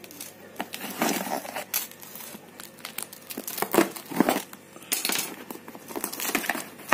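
A taped cardboard shipping box being opened by hand: packing tape and plastic wrap crinkling and cardboard rustling in irregular bursts, with a few sharp clicks.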